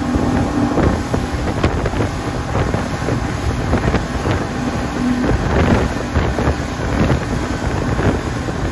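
Speedboat running fast over open sea: engine noise under the constant hiss and splash of its wake, with wind buffeting the microphone.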